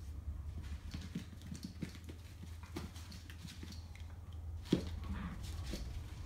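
An Old English Sheepdog and a dachshund puppy playing on a rug over a tile floor: paws scuffling and pattering in irregular soft taps, with one louder thump about three-quarters of the way through.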